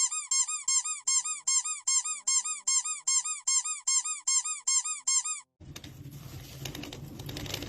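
A rapid run of identical high squeaky chirps, each rising and falling in pitch, about four a second, with nothing behind them: a cartoon-style squeak sound effect. It stops suddenly about five and a half seconds in and gives way to room noise with light clatter.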